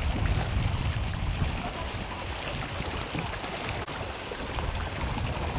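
Plastic paddle wheels of children's hand-cranked paddle boats churning and splashing water in a shallow pool, a steady run of sloshing and trickling.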